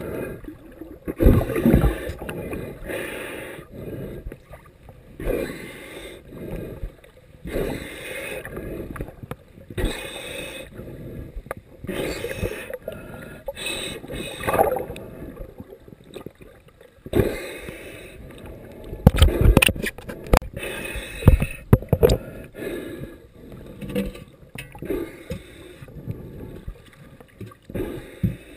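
Muffled water sloshing and bubbling around a camera held underwater in shallow surf, coming in irregular swells. A cluster of sharp knocks and scrapes against the housing about two-thirds of the way in.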